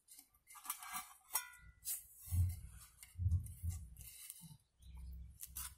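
Table knife scraping and clicking against an enamel plate while spreading jam on flatbread, with several dull low thumps from about two seconds in.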